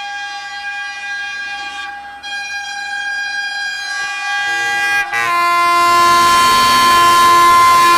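Horn of an Indian Railways Alco WDM3A diesel locomotive held in a long blast as the train approaches at speed. About five seconds in the blast breaks off briefly, then resumes louder.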